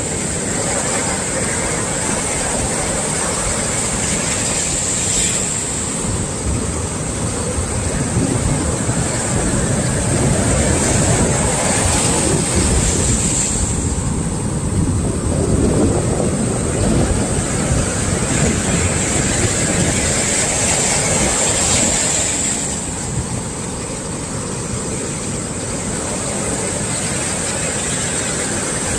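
Swell waves breaking and washing on a beach: a continuous rush of surf that grows louder through the middle and eases off near the end.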